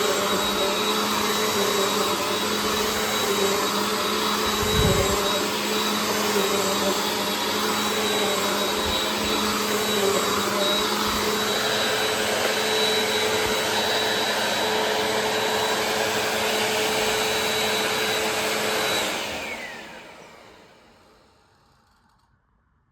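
Bissell CleanView Compact (3508) vacuum cleaner running steadily with its motor's whine, with one low thump about five seconds in. It is switched off near the end, the motor winding down with a falling whine to near silence.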